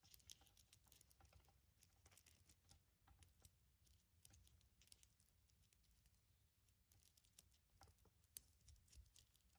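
Faint, irregular clicking of a stainless steel bike-chain style fidget, its metal links ticking against each other as it is flexed and turned in the hands.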